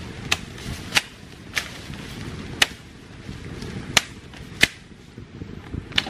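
Machete chopping at bamboo and brush: about seven sharp strokes at an uneven pace, over a steady background hiss.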